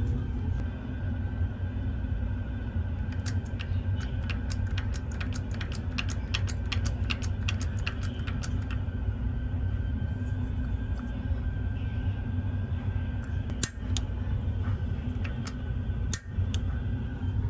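Many light clicks and small metal taps from handling tester leads and wire connectors, most of them in a burst of several seconds and a few more near the end, over a steady low rumble.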